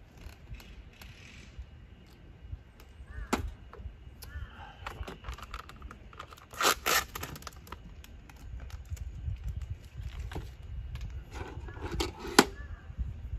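A handful of sharp clicks and knocks of objects being handled on a metal-topped camp table, a cluster about halfway through and the loudest near the end, over a low steady rumble.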